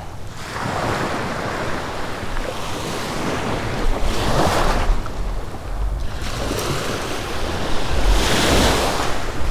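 Small waves breaking and washing up the beach, swelling about every four seconds, with wind rumbling on the microphone.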